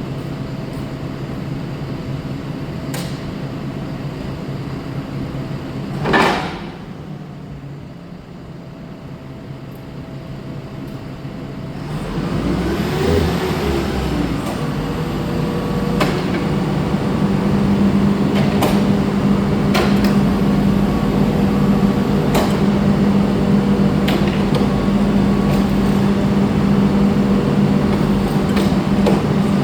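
Heavy forklift engine running at idle, then revving up about twelve seconds in and holding a higher, steady speed for the rest, with scattered sharp metallic clanks. A short loud burst about six seconds in.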